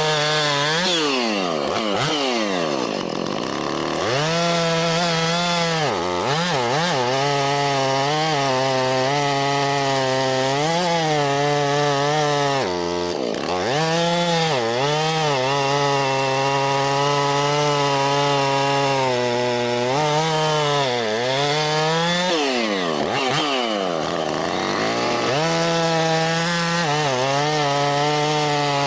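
Husqvarna 450 two-stroke chainsaw running at high revs, cutting wood. Its pitch dips sharply and winds back up several times, with long stretches held steady at full speed between.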